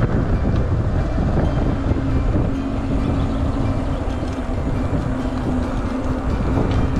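Wind buffeting the microphone with a loud, steady rumble, as from riding a mountain bike at speed. A steady hum joins about two seconds in.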